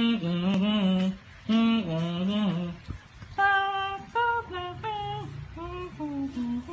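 An adult singing a slow tune to a baby in long held notes. The melody moves to higher held notes about three seconds in.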